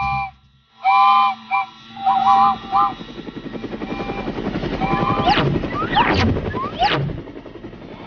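Cartoon sound effects: a toy steam train's whistle toots several times in short blasts, then a fast rhythmic chugging builds up, with quick sliding whistle-like sweeps near the end.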